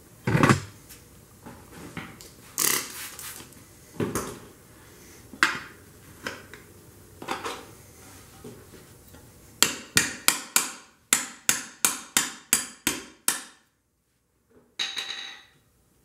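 Metal tire spoons clanking and tapping against a motorcycle rim while a tire is levered on: scattered sharp knocks, then a quick run of about a dozen sharp ringing taps, roughly three a second, and a last short clatter near the end.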